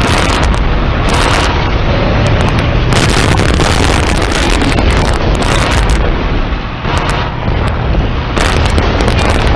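Battle sound: tank cannon fire and explosions over a continuous heavy rumble, loud and dense throughout with no pause.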